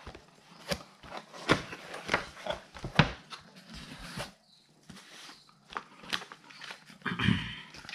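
A cardboard retail box being opened and its packaging handled: irregular taps, clicks and scrapes of cardboard, with a longer rustle near the end.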